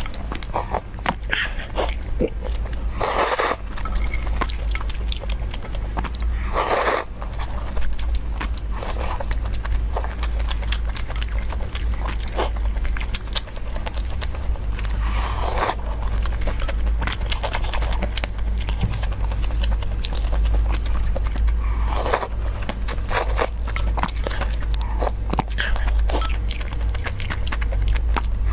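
Close-miked eating of noodle soup: chewing and wet mouth sounds with many small clicks of chopsticks and a plastic spoon, and four louder slurps spread through. A steady low hum runs underneath.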